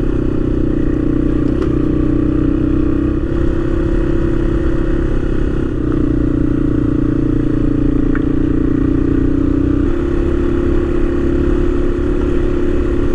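Dual-sport motorcycle engine running steadily while riding, its pitch shifting slightly a few times with the throttle.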